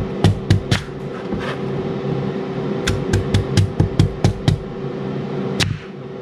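Air fryer running with a steady whirring hum, while a knife cuts through a raw sweet potato onto a plastic cutting board in sharp knocks: a few in the first second, a quick run of about eight a little after the middle, and one louder one near the end.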